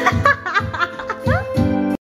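Karaoke backing music with steady held chords, and a woman's voice giggling into the karaoke microphone over it. The sound cuts off abruptly near the end.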